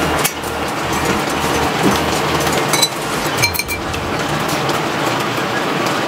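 Steady background noise at the dinner table, with a few clinks of utensils against dishes about three seconds in.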